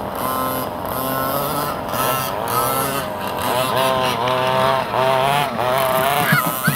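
Motorbike-like engine sound revving, its pitch holding steady in short pulses at first, then rising and falling repeatedly, with a rising sweep near the end.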